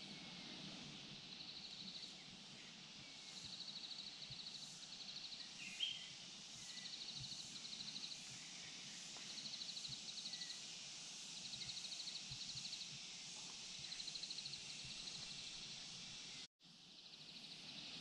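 Outdoor ambience with a steady hiss, over which an animal repeats short, rapidly pulsing trills of about a second each, every couple of seconds. A single short chirp comes about six seconds in.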